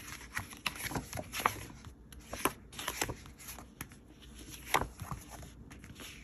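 Pages of a paper sticker book being turned and handled: scattered rustles and quick flicks of paper, the sharpest flick near the end.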